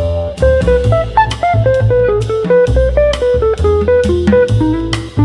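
Instrumental background music: a melody of short plucked notes over a bass line and a steady drum beat.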